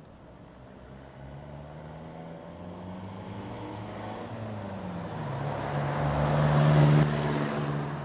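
Motor vehicle engine and road noise growing steadily louder, with the engine note dropping in pitch partway through, loudest about seven seconds in, then falling off sharply.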